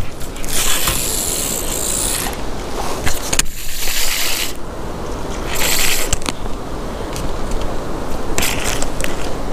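Baitcasting reel being cranked, its gears whirring in several short spells as a jig is reeled back in stop-and-go fashion.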